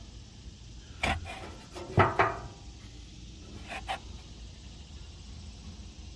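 A few sharp knocks and clatters, the loudest a cluster about two seconds in and two more nearly two seconds later, over a faint steady low hum.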